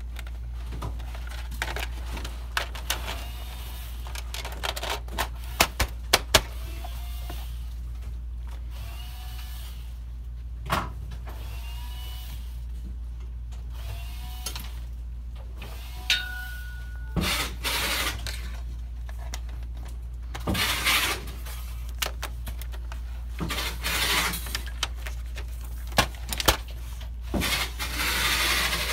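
Hands handling a PS4's plastic and metal parts as the power supply and its cover are lifted out of the console: scattered clicks, knocks and short scraping sounds over a steady low hum.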